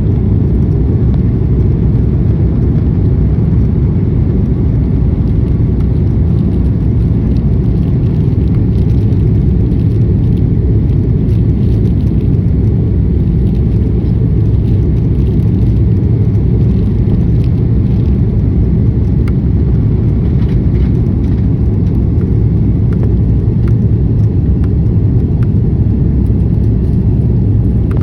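Airbus A330-300 airliner cabin noise: a loud, steady low rumble of the jet engines and rushing air, with faint light rattles now and then.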